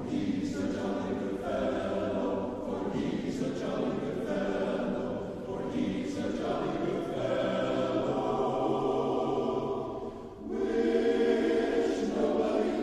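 A choir singing slow, sustained chords. It breaks off briefly about ten seconds in and comes back louder.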